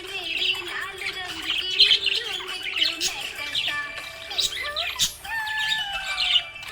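A group of budgerigars chirping and warbling continuously, a rapid stream of short chirps and chattering notes with a few longer falling whistles near the end.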